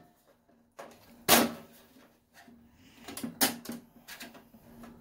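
Screwdriver prying and scraping at a stuck plastic power-cord pinch clip (strain relief) in a bread machine's sheet-metal bottom cover, giving sharp clicks and clunks: a loud one about a second and a half in, another about three and a half seconds in, with smaller ticks around it.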